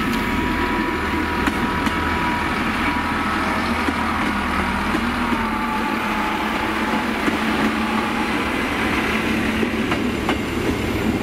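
Class 158 diesel multiple unit passing close by, its underfloor diesel engines running with a steady hum over the rumble of wheels on rails and a few faint clicks.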